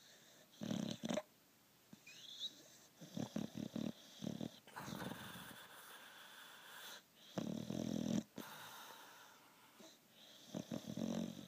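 Sleeping dog snoring, irregular snores and breaths with the loudest about a second in and again near eight seconds, and runs of short quick puffs in between.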